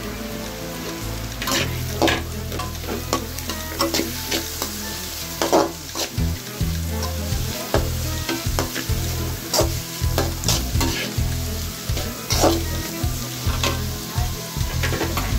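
Sliced onion, capsicum and carrot sizzling as they are stir-fried in a metal kadai, with a spatula scraping and clinking against the pan again and again.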